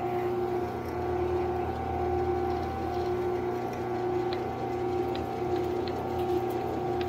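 Metal lathe running with a steady whine and a hum that pulses about once a second. A drill bit in the tailstock chuck is fed into the end of a metal pin, enlarging the hole so it can be tapped for a grease fitting. A few faint ticks sound over it.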